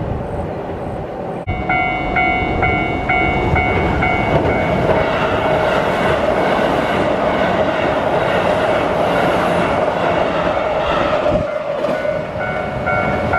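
Keihan electric train running over a steel railway bridge, its rumble building about four seconds in and easing near the end. Through most of it a level-crossing warning bell rings with an even beat of about two strokes a second.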